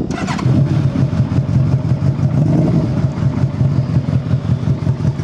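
1999 Yamaha Royal Star Venture's 1300cc carbureted V4 engine idling steadily, with an evenly pulsing exhaust note. It has a little growl that is not the stock sound, which the seller puts down to the baffles probably having been taken out of the mufflers.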